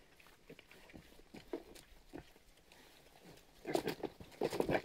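Pigs at their feed pans: faint chewing clicks, then from a bit past halfway a burst of loud, rapid grunting as they jostle for the same pan.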